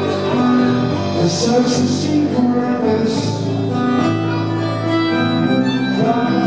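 Live band playing an acoustic arrangement: strummed acoustic guitar and electric bass under a held harmonica melody.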